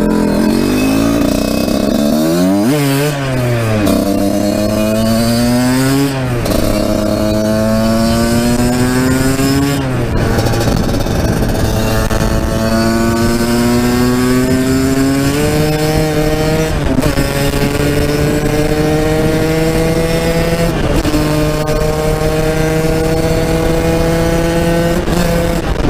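Husqvarna SMS 125's two-stroke single-cylinder engine, fitted with an HGS expansion-chamber exhaust and shorty silencer, pulling hard under acceleration. A few quick blips come first, then the engine note climbs steadily and drops at each upshift, about six times.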